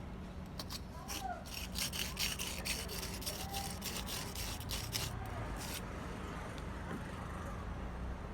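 A run of quick hand scraping or filing strokes, starting about a second in and stopping near six seconds, over a steady low hum.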